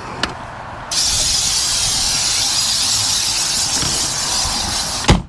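A pressurised spray, most likely an aerosol can aimed at the ant nest, hissing in one long burst of about four seconds, starting about a second in. It ends with a single sharp knock.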